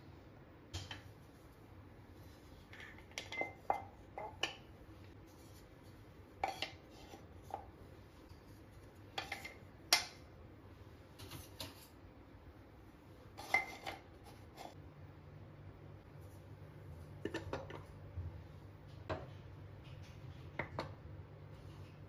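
Kitchen items being set down and arranged by hand on a wooden tray: wooden spatulas dropped into a ceramic holder and glass jars with lids and small spoons placed down, giving scattered knocks and light clinks, about a dozen, spread irregularly.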